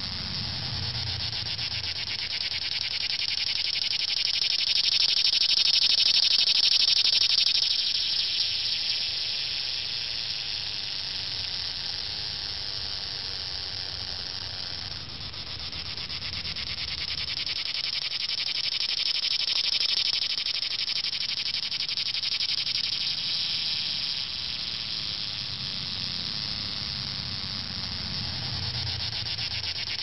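Cicadas singing in chorus: a dense, high buzz that swells and fades, loudest about six seconds in and again around twenty seconds, with a brief dip about halfway through.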